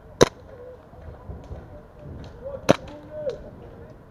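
Airsoft MP7 firing two single shots about two and a half seconds apart, each a short sharp crack, with fainter clicks of other shots in between.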